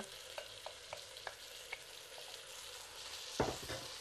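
Rice and spices sizzling in hot oil in a pot as they are stirred with a wooden spoon. A few light spoon taps come in the first two seconds, and one louder knock comes about three and a half seconds in.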